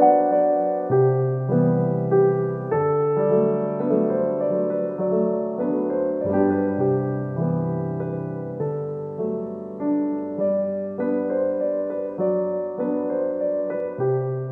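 Background piano music: a gentle tune of struck notes and chords, each fading after it is played.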